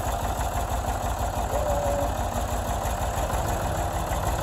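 Ford 555B backhoe loader's diesel engine running steadily at idle.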